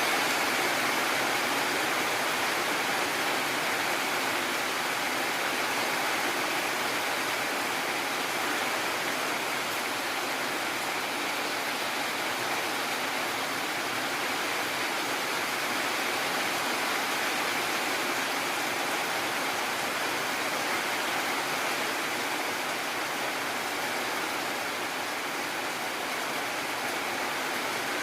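Heavy rain falling steadily, an even hiss that holds level throughout.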